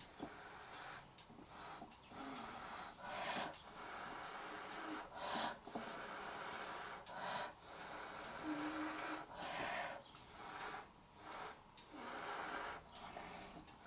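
A person's breath close to the microphone: repeated short puffs of air, each lasting about a second, every one to two seconds.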